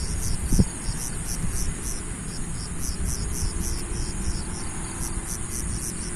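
Insects chirping in an even rhythm, about three chirps a second, over a steady high trill, with a low rumble underneath. A single brief knock sounds about half a second in.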